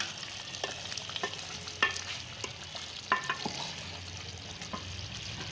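A spatula stirring thick mutton curry in a metal pot, with scattered scrapes and knocks against the pot over a steady sizzle. The curry is being cooked down to dry off its water.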